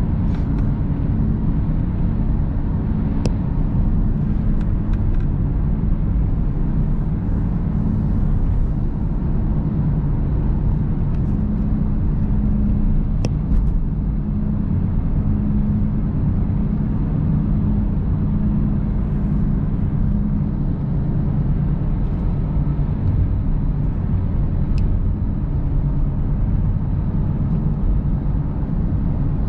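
Car driving at a steady speed: an even engine drone and road rumble, with a few faint clicks.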